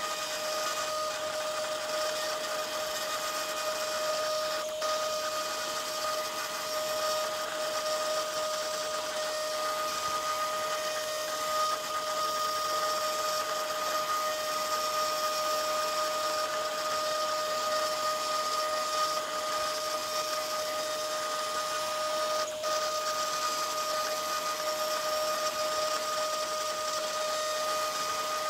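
Root 3 Lite CNC machine's spindle running with a steady whine while its bit mills copper-clad PCB board, with two faint clicks partway through.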